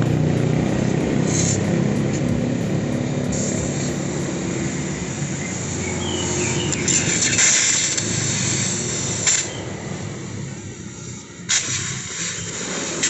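Acetylene (carbide) gas welding torch hissing as a small steel plate is welded, over a steady low rumble. A couple of short, sharp noises come near the end.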